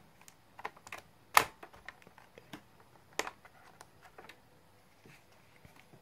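Small plastic clicks and knocks as the battery latch of an Acer Aspire 2930Z laptop is slid and the battery pack is pulled out of its bay. The sharpest click comes about a second and a half in, another about three seconds in, with lighter ticks between.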